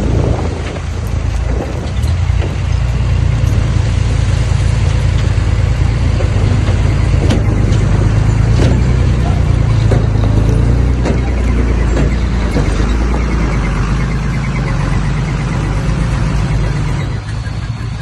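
Heavy diesel earthmoving machinery running loud and steady under load, a deep engine rumble with a few short metallic clanks.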